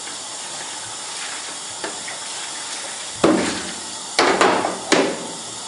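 Water running steadily into a stainless steel sink, with three sudden loud splashes about three, four and five seconds in as rinse water is tipped out of a plastic darkroom tray.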